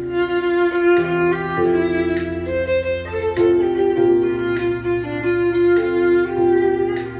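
An instrumental stretch of a pop song played back through a Konzert KSS-10 loudspeaker: a bowed-string melody over sustained chords and a bass line, with a light percussive hit about every second.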